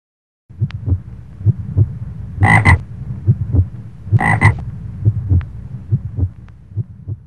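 Frogs croaking: a steady run of low, irregular croaks, with two louder, higher double calls about two and a half and four and a half seconds in.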